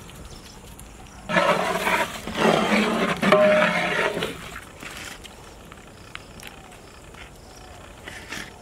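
A large metal ladle stirring and scraping through thick mutton korma gravy in a big metal cooking pot. There is a loud, rough burst of scraping and churning for about three seconds, starting about a second in.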